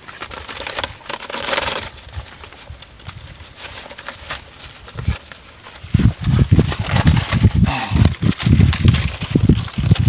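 Crinkling and rustling of a paper bird-holding cone being handled and folded. From about six seconds in, a run of loud, irregular low thumps joins it.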